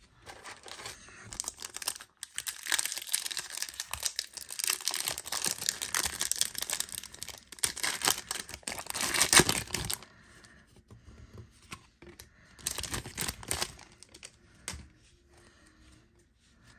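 Shiny trading-card pack wrapper being torn open and crinkled in the hands, a dense crackling for about ten seconds, loudest near the end of the tearing. Two short, softer crinkles follow as the cards come out.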